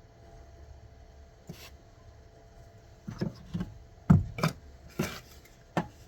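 A series of short knocks and clunks, about six in all: one faint knock early, then a quick cluster in the second half, the loudest just after the middle.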